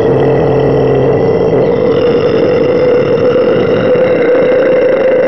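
A loud, steady drone held at one pitch, with a ringing overtone above it.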